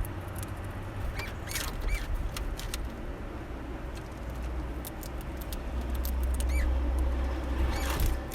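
Small finches at a bird feeder giving short, high calls, with light clicks and taps among them, over a low rumble that swells in the second half.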